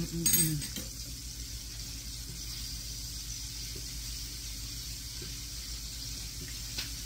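Breaded chicken gizzards frying in olive oil in a skillet, a steady sizzle. There is a short clatter, as of metal on metal, about half a second in.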